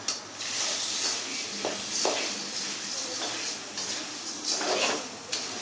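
Puffed rice being poured into an aluminium pan and turned with a metal spatula: a steady dry rustling hiss, with a few short knocks and scrapes of the spatula against the pan.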